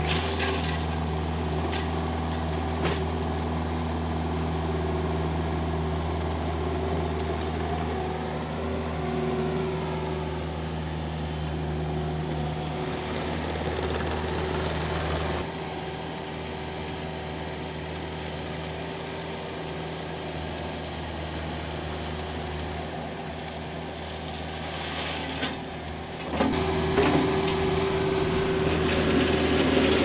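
Vermeer stand-on mini skid steer's engine running steadily as the tracked loader scoops and dumps gravel, with a brief rise and fall in pitch about a third of the way in. It turns quieter about halfway through and louder again near the end.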